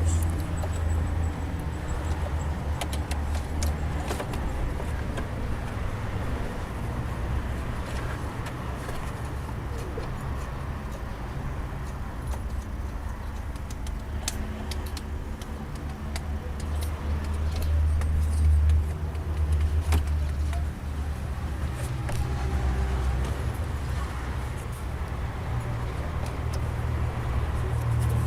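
Audi A4 B6's 1.9 TDI four-cylinder diesel engine running steadily, with irregular light ticks over it. The mechanic takes the noise for a faulty belt tensioner, though he is not sure.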